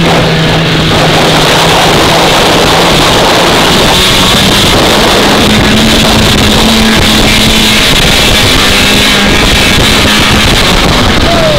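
Vintage two-stroke snowmobile engine running under way at steady throttle, picking up speed about four seconds in.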